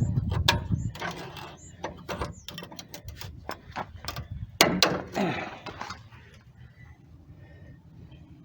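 Metal hand tools clicking and clanking in an irregular series, a wrench worked against a seized truck-bed bolt. A low rumble fades out in the first second, and the clicks thin out after about six seconds.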